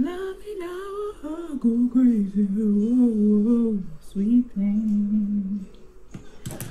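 A woman humming a tune to herself with long, wavering held notes, breaking off about five and a half seconds in; a single sharp click near the end.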